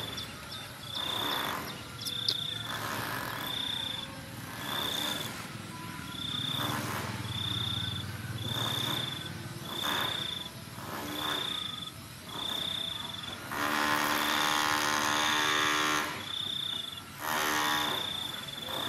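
An insect's short, high chirps repeating evenly about once a second. About fourteen seconds in comes a louder, longer pitched animal call lasting about two seconds, with soft rustling now and then.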